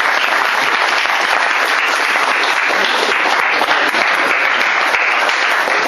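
A room of onlookers applauding, many hands clapping steadily.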